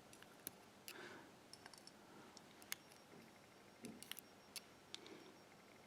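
Faint, scattered light clicks and taps as small lock pins and tools are handled on a pinning tray, with a few clicks close together a little before four seconds in.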